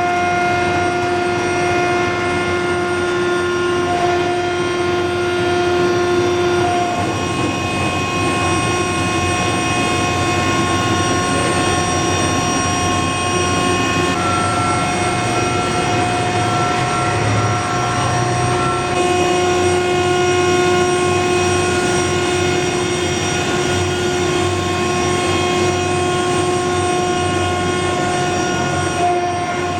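Steady, loud mechanical roar of a tilting rotary aluminium melting furnace plant running, with a continuous hum of steady tones that change slightly a few times.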